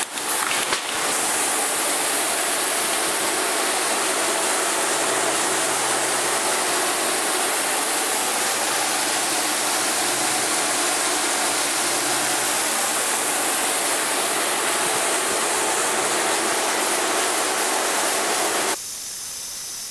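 Aerosol spray can of flat black paint hissing in one long continuous spray, stopping suddenly about a second before the end.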